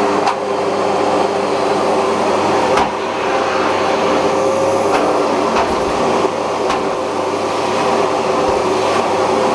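Philips bagged vacuum cleaner running steadily at suction, a constant motor whine over airflow noise, with a few short clicks along the way.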